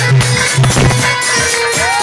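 Loud Indian rural folk dance music (dehati nach geet) with a steady drum beat under a held melodic line.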